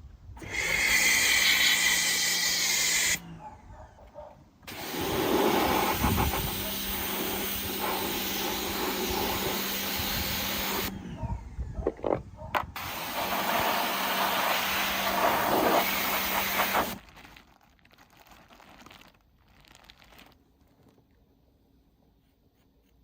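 Power grinder running in three bursts, about three, six and four seconds long, grinding metal with a steady hum under a harsh hiss.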